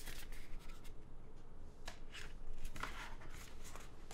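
Thin white cardboard packaging being handled and slid between the hands, a few short papery scrapes and rustles.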